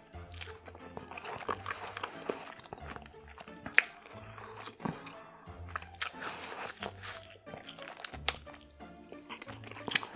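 Close-miked eating sounds: crunchy bites and wet chewing, with a sharp crunch about four seconds in, over background music with a repeating bass line.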